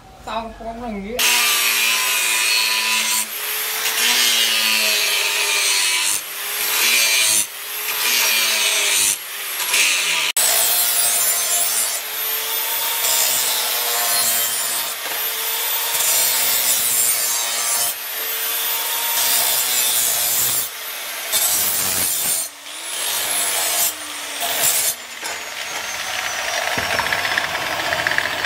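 Angle grinder sharpening the edge of a long steel knife blade: a steady abrasive rasp with the motor's whine sagging and recovering as the disc is pressed on and lifted in repeated passes. It starts about a second in.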